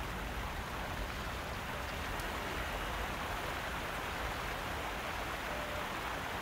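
Steady hiss of a jet of white mist spraying across a small fire.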